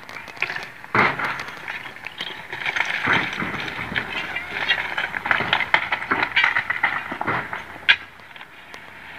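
Broken quarry stone clattering and knocking irregularly as loose rocks are pried and shifted with a long bar on a rock pile, with one sharp crack near the end.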